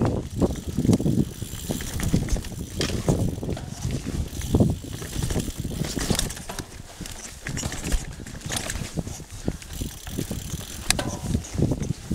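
Mountain bike rolling fast down dirt singletrack covered in dry leaves: the tyres run over the leaf litter and the bike rattles and knocks over bumps, in uneven surges with a few sharp clicks.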